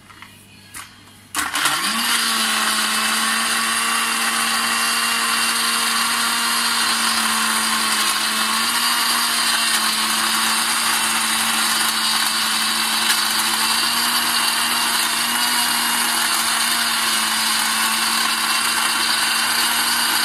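Countertop bar blender switched on about a second and a half in, then running at a steady speed with an even motor whine as it blends milk, strawberry syrup and ice into a frappe.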